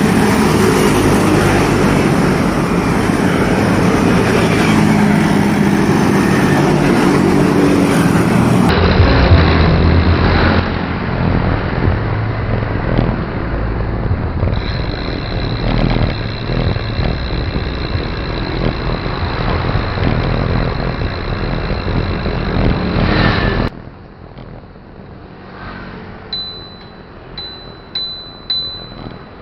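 Steady wind and road noise from a bicycle ride, with motor traffic, that cuts off suddenly about 24 seconds in, leaving a quieter stretch with a few short, high chirps near the end.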